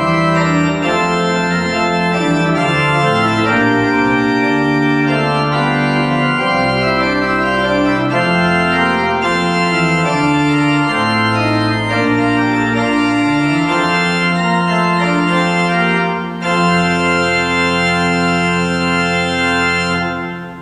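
Church pipe organ playing sustained chords over a moving bass line, with a brief break about three-quarters of the way through, then a long final chord that is released and dies away at the very end.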